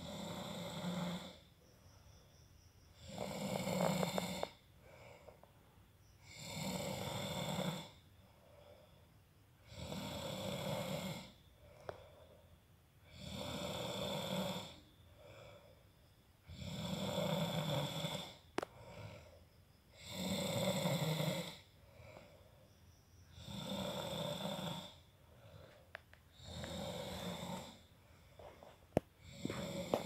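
A sleeping man snoring in a steady rhythm: nine snores, one about every three and a half seconds, each lasting about a second and a half, with quiet gaps between.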